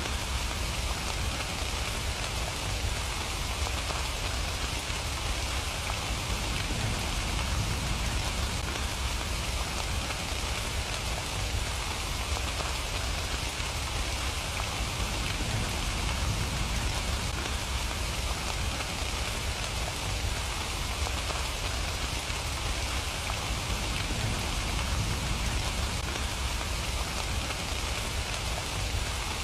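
Steady rain falling and pattering on surfaces, an even hiss of drops with a low rumble underneath and no let-up.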